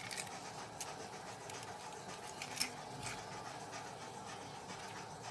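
An egg cracking once at the start, then a few faint clicks and scratches of handling over a steady faint hiss.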